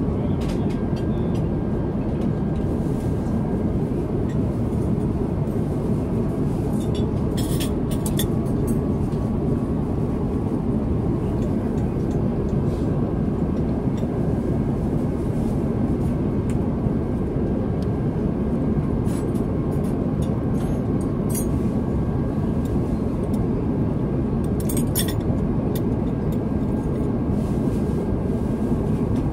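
Airbus A350 cabin noise in flight: a steady low rush of airflow and engines with a faint steady hum. Light clinks of cutlery and glassware come through on top, about seven seconds in, again around twenty seconds, and near twenty-five seconds.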